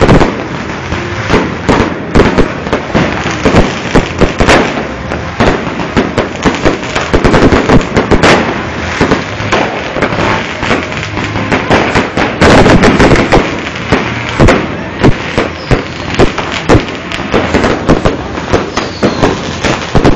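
Fireworks going off in a dense, loud barrage: sharp bangs several times a second without a break, with a heavier burst about twelve seconds in.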